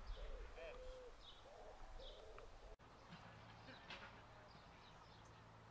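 Pigeon cooing faintly in a repeated phrase, with small birds chirping higher up. The sound cuts off abruptly almost three seconds in. After that comes a different background with a steady low hum and scattered bird chirps.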